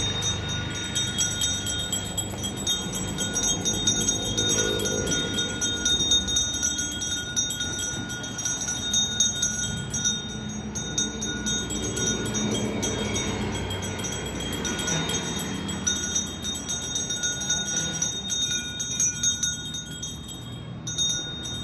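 Puja hand bell rung without pause during the worship, its high ringing tones holding steady throughout.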